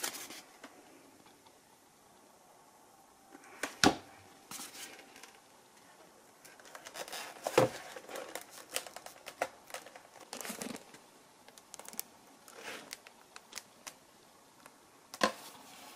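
Handling noise as a black vertical fin is fitted against a foam flying-wing fuselage: scattered crinkling, rustling and light clicks, with a few sharp knocks, the loudest about four seconds in and another near eight seconds.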